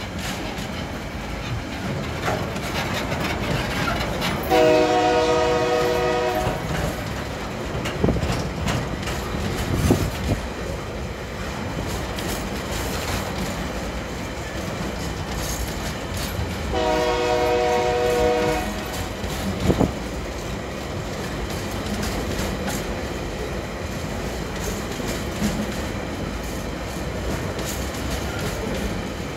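Container wagons of a freight train rolling past close by, a steady rumble with the clickety-clack and occasional clunks of wheels over rail joints. The locomotive's horn sounds twice, each blast about two seconds long, roughly twelve seconds apart.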